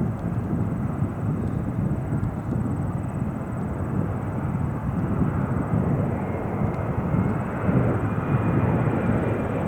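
Airbus A330-223 airliner's twin Pratt & Whitney turbofans at takeoff thrust, a steady deep jet rumble with a faint whine showing near the end.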